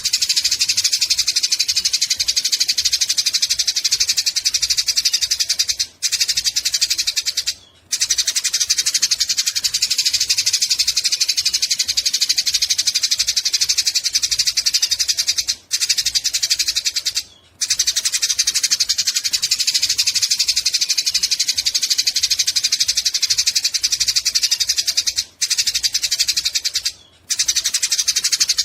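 Eurasian tree sparrows chattering in a dense, rapid, unbroken stream of harsh chirps: the excited chatter of sparrows fighting. It breaks off for a moment six times, in pairs of short gaps about every ten seconds.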